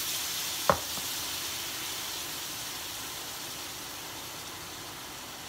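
Almond-flour dosa batter sizzling and steaming on a hot non-stick pan, a steady hiss that slowly fades. Less than a second in, a single sharp clink.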